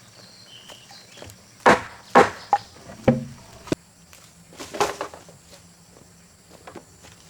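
A series of sharp knocks at uneven intervals, the loudest about two seconds in and a last cluster around five seconds in.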